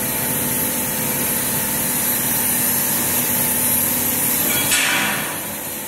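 Meltblown nonwoven fabric production line running during a trial run: a steady machine hum with a high hiss over it, and a brief louder rush of noise about five seconds in.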